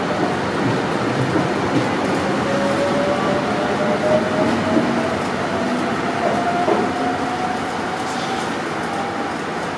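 Train running at the station, loud and steady, with a thin whine that slowly rises in pitch across the clip.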